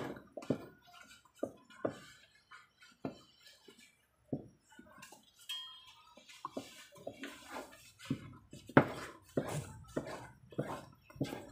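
Cookware and metal utensils knocking and clinking against each other as they are handled: many short, irregular strikes, the loudest about nine seconds in.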